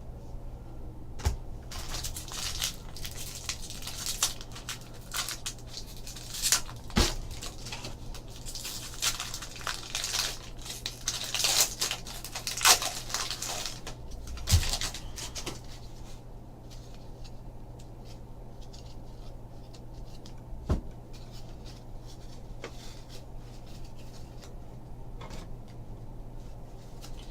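Trading-card pack wrapper being torn open and crinkled, with sharp taps and clicks, for the first half or so; then quieter, with a few single clicks. A steady low hum sits underneath.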